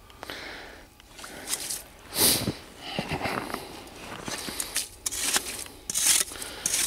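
Long-handled ice skimmer scraping and scooping slush and ice chips out of a freshly drilled ice-fishing hole, in irregular rasping scrapes and knocks. The loudest scrape comes about two seconds in, with another burst near the end.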